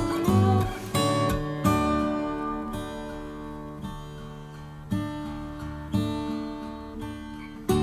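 Background music: acoustic guitar strummed chords, each strum ringing out and fading before the next.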